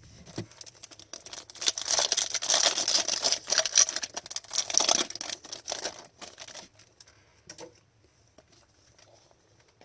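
A foil trading-card pack wrapper being torn open and crinkled, a dense crackling for about four seconds, then a few light ticks as it is set aside.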